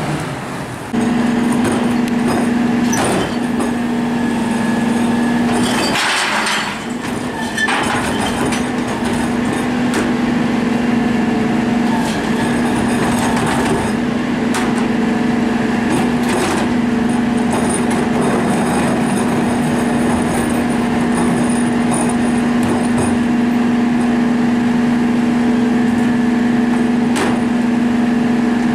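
Rear-loader garbage truck's engine running with a steady hum at a raised idle while it powers the cart tipper and packer hydraulics. A brief hiss comes about six seconds in, and occasional knocks come as recycling carts are tipped into the hopper.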